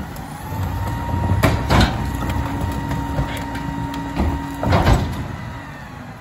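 Rear-loader garbage truck's packer running a compaction cycle: the hydraulics whine steadily for about four seconds as the blade sweeps down through the hopper, with loud clanks and thuds, then the whine stops.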